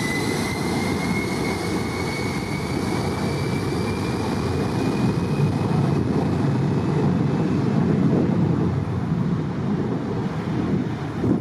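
Jet airliner engines close by: a heavy, steady rumble with a high whine over it that rises slightly in pitch and fades out about halfway through.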